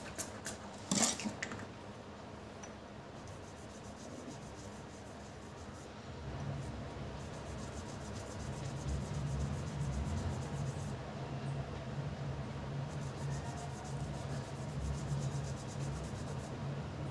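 Bicycle disc brake pad rubbed back and forth on a cloth dusted with powder, making a steady scraping rub from about six seconds in, as part of resurfacing the pad against squealing. There is a sharp tap about a second in.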